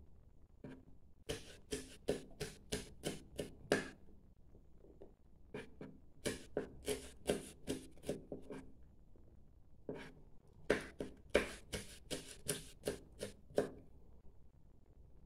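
Kitchen knife slicing chilies on a plastic cutting board: quick runs of sharp knocks, about four a second, in three bursts with short pauses between.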